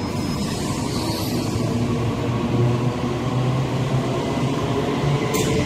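Tianfu intercity electric multiple unit train running past along the platform: a steady rumble of wheels on rails with a low electric hum, and a short high hiss about five seconds in.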